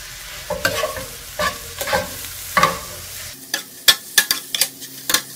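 Metal spatula and tongs scraping and tapping against a skillet as a bitter melon and egg stir-fry is tossed, over a light sizzle of frying. The strokes come quicker about three seconds in.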